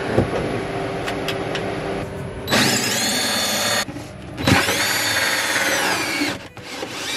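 Cordless drill with a hole saw biting into a plywood floor, run in two short bursts of a second or two each, its motor whine dropping in pitch as the second burst ends.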